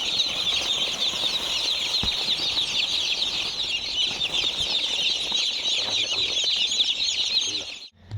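A large flock of young broiler chickens cheeping, a dense, continuous chorus of high peeps that stops abruptly just before the end.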